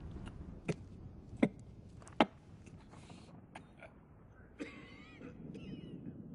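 Three sharp knocks about three-quarters of a second apart, then a short throaty vocal noise, a throat clearing, a little over four and a half seconds in, with a smaller one just after.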